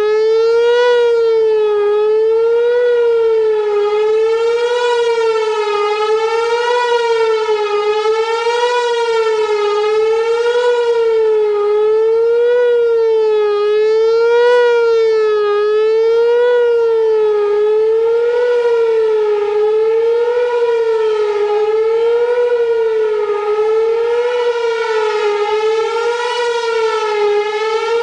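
Whelen 4004 electronic outdoor warning siren sounding loud and continuous: one steady tone with strong overtones, its pitch wavering gently up and down about every two seconds.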